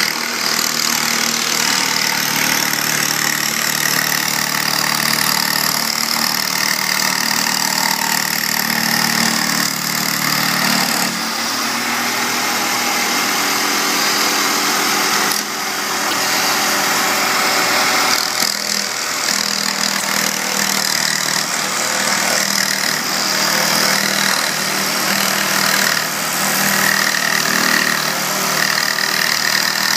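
A machine running steadily with a constant motor hum, dipping briefly a couple of times.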